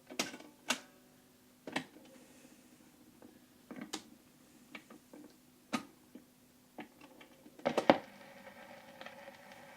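Scattered clicks and knocks from handling the Bush SRP31D valve record players, about a dozen irregular sharp ticks and small thumps as they are set up to play, over a faint steady low hum.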